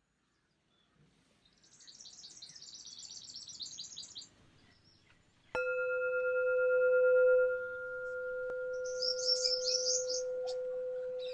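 Small birds chirping in quick high trills, then a singing bowl struck once about five and a half seconds in. It rings on in a long steady tone while the birds chirp again near the end.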